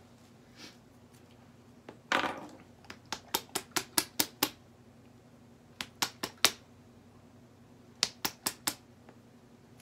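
Small knife and fingers working the plastic shrink seal off the neck of a woozy hot sauce bottle and opening it: a short scratchy rasp about two seconds in, then three quick runs of sharp plastic clicks, about five a second.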